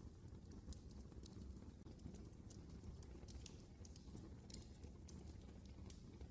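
Fire in a fireplace crackling softly: faint, irregular pops and snaps over a low steady rumble.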